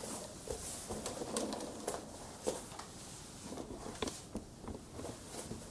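Light, scattered clicks and taps of plastic toy kitchen pieces being handled and set down.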